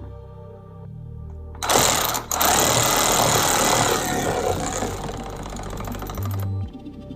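Hand ratchet with a socket clicking rapidly, starting about a second and a half in and stopping at about six and a half seconds, as the negative battery terminal nut is run down and tightened.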